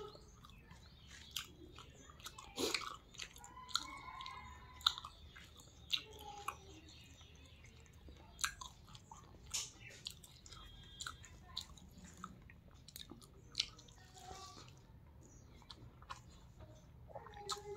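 A person eating rice with roasted pork by hand, chewing with faint wet mouth sounds and scattered short clicks.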